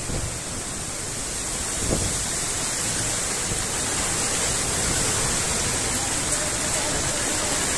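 Heavy rain and strong storm wind: a steady rushing noise that grows a little louder about two seconds in.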